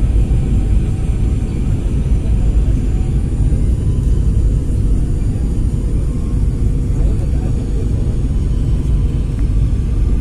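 Steady low rumble of a jet airliner heard from inside the cabin on its descent to land: engine and airflow noise.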